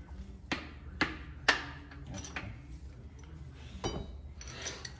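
Three sharp hammer blows about half a second apart on a seized 1969 Mopar 440 big-block engine block, struck to free stuck internals. Lighter metallic clicks follow, then a clink that rings briefly and a short clatter of metal parts.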